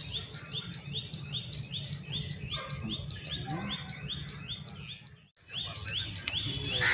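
Rapid, evenly repeated chirping, about three short rising chirps a second, over a low steady rumble; it drops out briefly a little after five seconds in.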